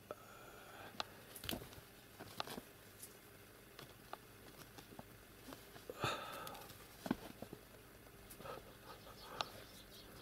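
A kitten pouncing at and batting a hanging toy on a bed: faint scattered taps and soft rustles of paws and bedding, with a louder scuffle about six seconds in.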